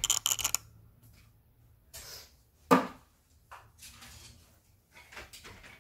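Loose plastic LEGO bricks clicking and clattering as hands rummage through a pile, with a quick run of clicks at the start and scattered clicks after. A single loud sharp knock comes nearly three seconds in.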